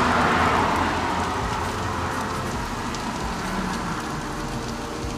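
Crusted fish fillets sizzling in hot oil on a foil-lined baking tray: a steady hiss with faint crackling pops, easing slightly after the first second, over a steady low hum.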